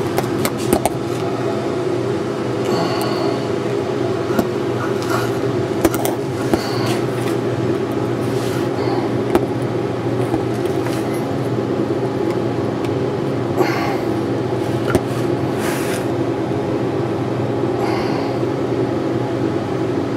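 Stick-welding arc from a 6010 electrode running the open root pass on pipe, uphill: a steady buzzing hum with scattered sharp pops and crackles.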